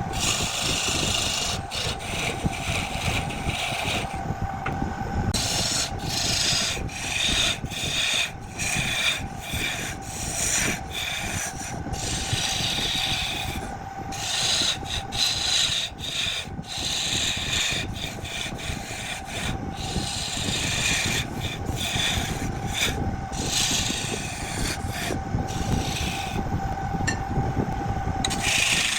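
Wood lathe running with a steady hum while a turning tool cuts the spinning wood. The scraping cut breaks off briefly again and again as the tool is lifted from the work.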